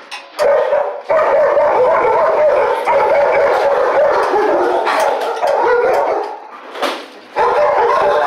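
Many shelter dogs barking and howling together in a continuous din. The din drops off briefly about six seconds in, then starts up again, with a few sharp clicks over it.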